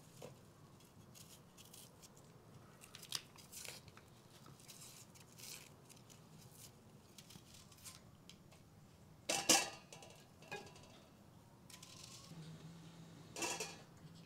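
Small, close handwork sounds: dry onion skins crackling and tearing as onions are peeled with a small knife, and fresh herb stems being snapped and plucked. There are light scattered crackles and scrapes throughout, with two louder crackles in the second half. A faint low hum comes in near the end.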